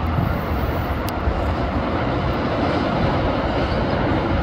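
Steady rushing noise of traffic on a multi-lane highway, heard from high above, with no single vehicle standing out.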